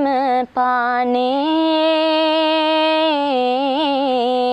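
A woman singing a Sinhala karaththa kavi (bullock-cart folk verse) solo, without accompaniment. She sings long drawn-out notes with wavering ornaments and takes a brief breath about half a second in.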